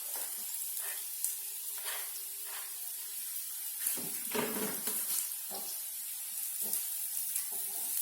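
Sausage and garlic sizzling in hot oil in a frying pan, with a spatula stirring and scraping at irregular intervals.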